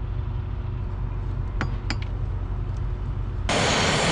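Two light metal clinks as a hand tool works the zinc anodes off a boat's propeller shaft, over a steady low hum. About three and a half seconds in, this changes abruptly to the louder, steady hiss of a propane torch flame heating the propeller hub.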